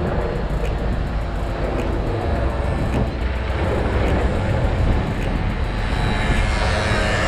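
Wind rumble and rolling noise from riding an electric-assist bicycle, a steady, heavy low rumble with a broad rush over it. A higher hiss swells in near the end.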